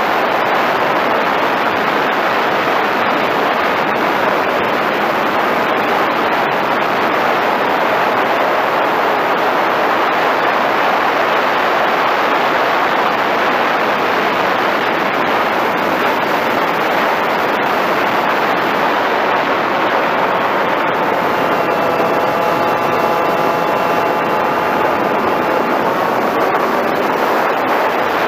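Steady rush of airflow and the running electric motor and propeller of an FPV Raptor radio-controlled plane in flight, picked up by its onboard camera. A faint steady whine from the motor comes in about two-thirds of the way through and fades a few seconds later.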